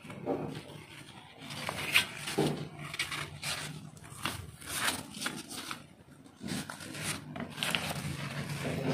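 Paper towel rustling and crinkling in irregular bursts as it is wrapped around rolled flatbreads by hand, with a low steady hum underneath.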